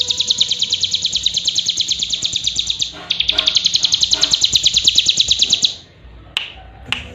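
A caged cigun (ciblek gunung, a small prinia) singing a fast, even run of high chirps, about ten a second, with a short break about three seconds in. The song stops near six seconds in, and a couple of sharp clicks follow near the end.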